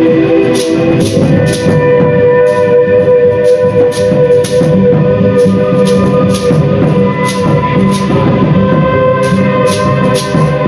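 Live music: several steady droning tones held under sharp percussive strikes that come roughly twice a second at uneven spacing, over a dense low rumbling layer.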